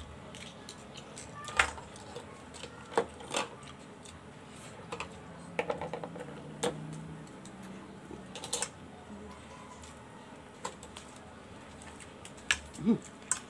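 Scattered sharp clicks and light scrapes of a metal utensil against boiled scallop shells while the meat is pried out, a dozen or so at irregular intervals, the loudest pair near the end.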